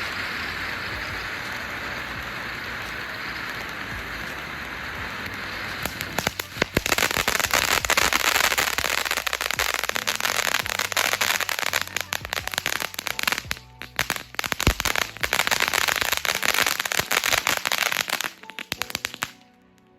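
Bottle of Sparks fountain firework burning: a steady hiss of spraying sparks, then from about six seconds in a dense, strong crackle that runs until it dies out near the end.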